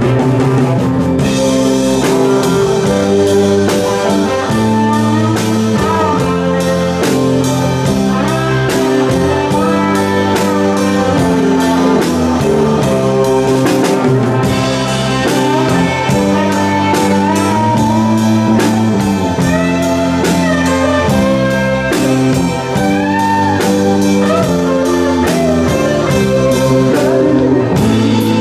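Live rock band playing an instrumental section: an electric guitar solo with bent notes over keyboard chords, bass and drums.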